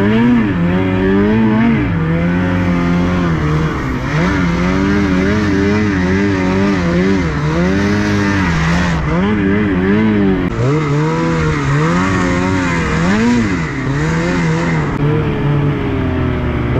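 Snowmobile engine revving up and down over and over, its pitch rising and falling every second or two as the sled works through deep powder, over a steady rushing noise.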